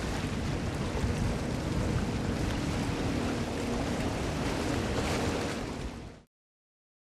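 Wind blowing across the microphone: a gusty low rumble with a steady hiss, and a faint low hum joining in midway. It cuts off abruptly about six seconds in.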